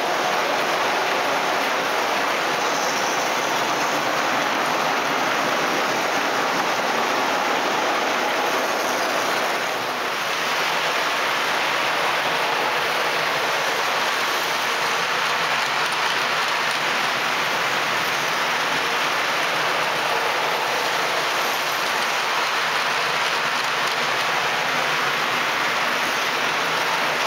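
O gauge model trains running on metal track: a steady, even rattling rush of wheels on rail, dipping briefly about ten seconds in.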